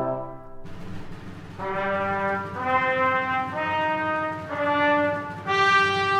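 Slow funeral march played by a brass ensemble: long held chords that change about once a second. It starts softly with a low rumble beneath and swells louder about five and a half seconds in.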